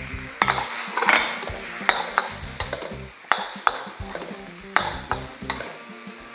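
Chicken, shrimp and meat pieces sizzling on scrambled egg in a hot seasoned wok, stirred with a metal ladle whose edge scrapes and clacks against the wok at irregular intervals.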